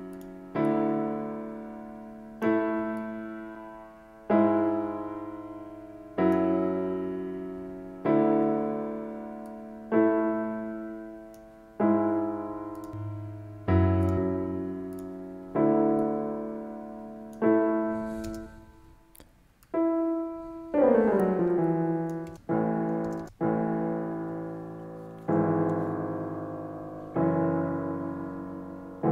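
Soloed software piano playing a looping progression of long held chords, one chord struck about every two seconds and left to ring and fade. The chords break off briefly a little past halfway, then resume with a somewhat changed tone.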